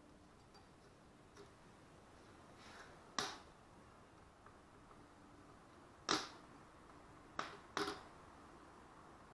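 Four short, sharp clicks and knocks of hand tools against metal parts during work on a small dirt bike engine's piston and wrist pin, the loudest about six seconds in, over a faint steady background.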